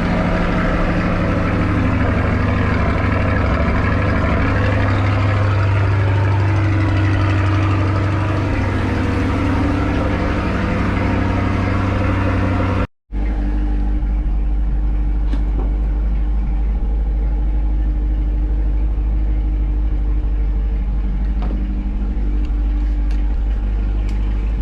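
A 2020 C8 Corvette's 6.2-litre LT2 V8 idles high and loud just after a cold start. After a brief dropout about 13 seconds in, it runs on at a steady idle.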